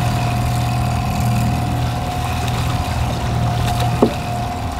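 Mercury outboard motor running steadily at trolling speed: a low hum with a steady high whine over it. One brief sharp sound comes about four seconds in.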